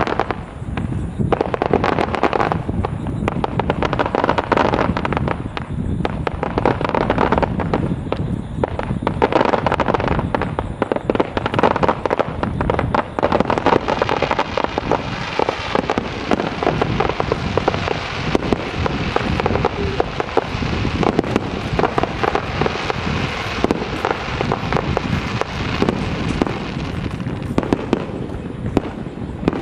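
Aerial firework shells bursting in a rapid, continuous barrage: many bangs in quick succession, joined from about the middle by a denser crackle.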